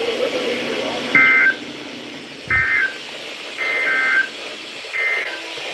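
NOAA Weather Radio receiver sounding EAS SAME data bursts over radio hiss: four short two-tone digital warbles about a second and a half apart. This is the end-of-message code that closes the weekly test broadcast.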